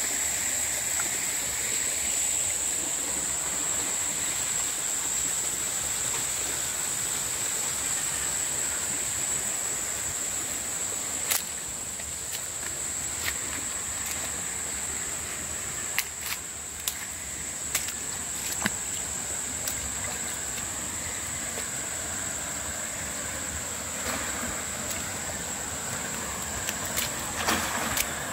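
Creek water running and trickling, with a steady high-pitched insect drone throughout. Scattered sharp clicks and knocks come in the second half, several close together near the end.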